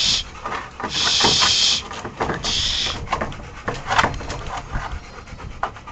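Dogs panting close by: three breathy hissing breaths in the first three seconds, then scattered paw scuffs and clicks with a faint whine around the middle.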